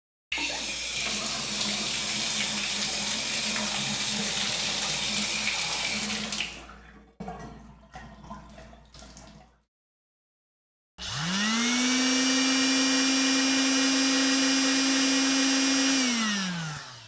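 A shower running, a steady hiss of spraying water that breaks up and trails off after about six seconds. Then, after a short silence, a hair dryer is switched on: its motor whine rises to a steady pitch, holds for about five seconds, and drops away as it is switched off.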